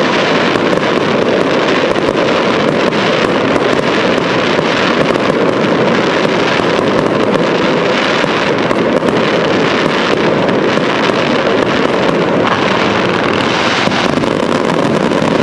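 Fireworks display: a dense, continuous barrage of aerial shells bursting, blurring into a steady rumble with many sharp cracks and crackles throughout.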